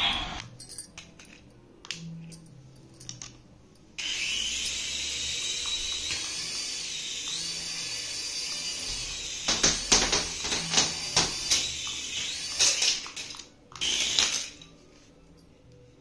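Small electric motor of a toy RC helicopter whining at speed, starting suddenly about four seconds in, with a run of sharp knocks and clatters over it in the middle. The whine cuts out near the end.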